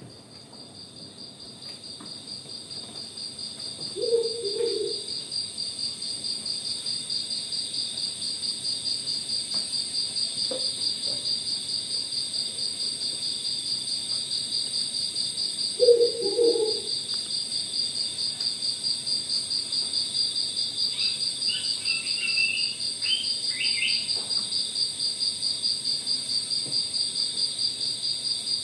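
Crickets chirping in a steady, fast-pulsing high trill, played as a night soundscape through the hall's speakers, fading in over the first few seconds. Two short low calls sound about 4 and 16 seconds in, the second the loudest moment, and a few brief higher chirps come between about 21 and 24 seconds.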